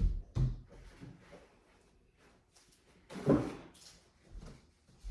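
A few dull knocks and thumps, the loudest a little over three seconds in.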